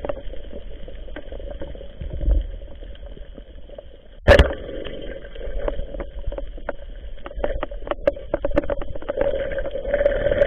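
Underwater sound heard through an action camera's waterproof housing: a steady hum with scattered clicks and crackling, and one sharp knock about four seconds in.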